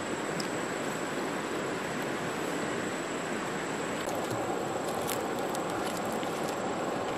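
Steady rushing of a stream's flowing water, with a few faint clicks in the second half.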